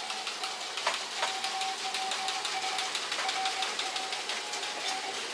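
Morse code beeping as one mid-pitched tone keyed on and off in short and long pieces. Under it runs a fast, busy mechanical clatter from a teleprinter printing.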